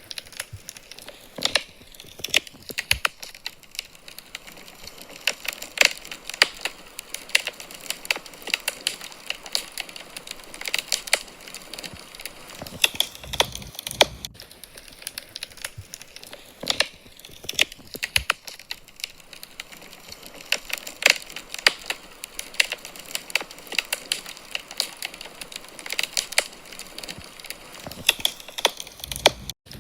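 Wood fire crackling in a fireplace: a continuous run of irregular pops and snaps over a soft hiss.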